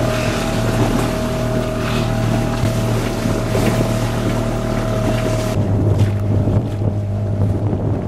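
Motorboat's outboard motor running steadily under way, heard from inside the boat's canopied cabin, with a hiss of wind and water over the engine hum. About five and a half seconds in the hiss drops away while the engine keeps running.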